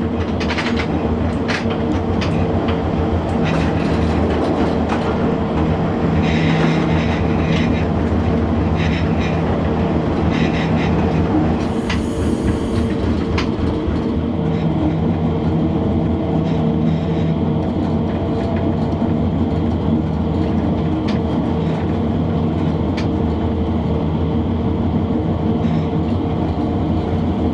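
A 1958 Deutsche Bundesbahn class E10 electric locomotive running along the line, heard from its cab: a steady hum with a few held tones, and the wheels clicking irregularly over the rail joints.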